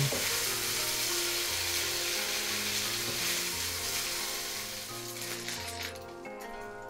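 Thin beef slices sizzling in hot oil in a nonstick wok as they are scooped out with a silicone spatula. The sizzle fades away about five seconds in, and a few light spatula scrapes and taps follow.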